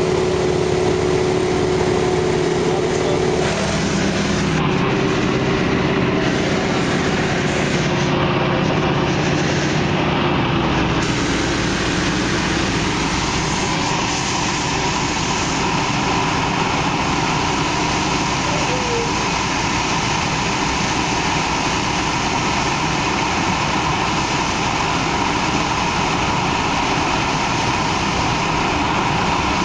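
Yak-52's nine-cylinder M-14P radial engine and propeller running loud and steady, heard from inside the cockpit. Its pitch steps down a little about three and a half seconds in and again around eleven seconds.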